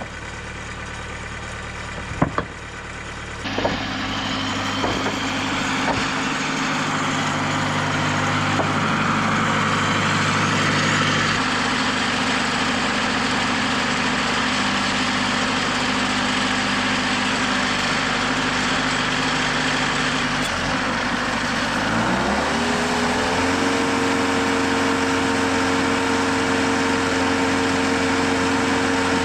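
Sawmill engine running steadily, with a few sharp knocks in the first few seconds. About 22 seconds in it speeds up, its pitch rising and then holding at the higher speed.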